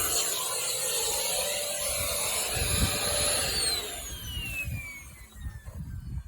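Electric fuel pump of a BMW E38 740i whirring loudly with a steady whine. About three and a half seconds in, its pitch falls steadily as the pump winds down and stops.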